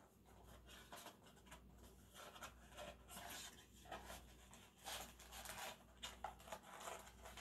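Faint, scattered rustling and scraping of a cardboard trading-card blaster box being opened and its foil card packs worked out of it.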